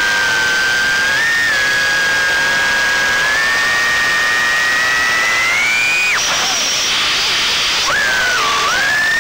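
Diatone R249 micro quadcopter's brushless motors and propellers whining, the pitch shifting and climbing with throttle. About six seconds in the whine cuts off suddenly and a hiss of rushing air fills nearly two seconds before the motor whine comes back, rising as the throttle is punched again.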